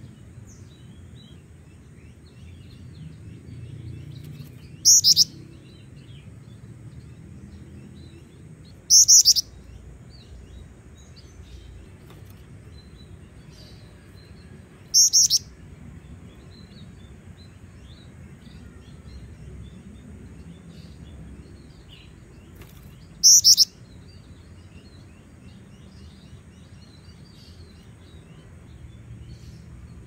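Female black-winged flycatcher-shrike (jingjing batu) giving four short, high-pitched calls, spaced several seconds apart, with faint chirps of other birds behind.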